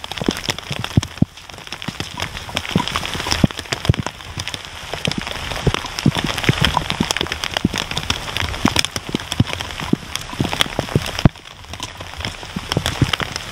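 Rain falling, with drops striking close to the microphone as many sharp, irregular taps over a steady hiss.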